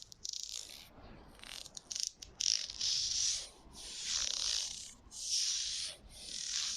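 ASMR props scratched and rubbed close to the microphone: a few light taps, then a run of hissy scraping strokes, each swelling and fading over about half a second to a second.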